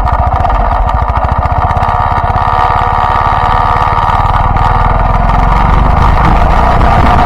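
Yamaha Byson motorcycle's single-cylinder four-stroke engine running steadily as the bike is ridden, its firing pulses plain, getting slightly louder near the end.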